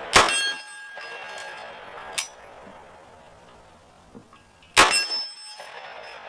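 Two gunshots about four and a half seconds apart, each followed by a high metallic ringing. A fainter sharp crack comes between them.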